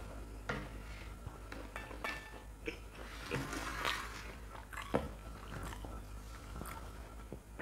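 Close-miked chewing and crunching of crisp fried food, fried fritters and fried dried chilies, with irregular crackles and mouth noises. The busiest crunching comes around the middle, and a single sharp click is the loudest sound, about five seconds in.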